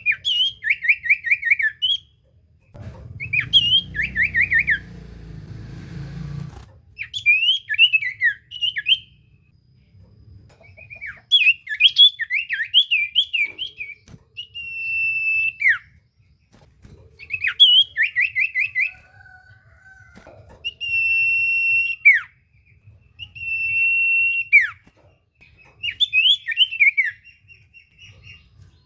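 Common iora (cipoh) singing in loud phrases every couple of seconds: fast chattering runs of falling notes alternating with long steady whistles that drop sharply at the end. A low rumble runs under the song for a few seconds early on.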